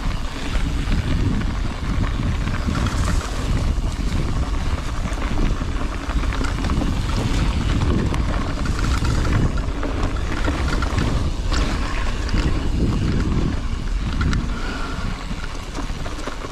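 Wind buffeting the microphone during a mountain bike ride, over a steady low rumble from the bike rolling along the trail.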